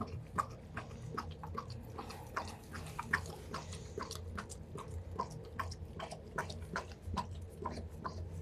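Shepherd Boxer mix licking a treat out of a small paper cup, a run of wet lapping and smacking tongue strokes at about three a second.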